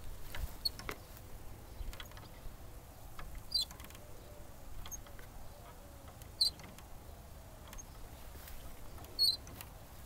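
A playground swing's hangers squeaking briefly three times, about every three seconds, as the red toddler-seat swing sways, with faint clicks between.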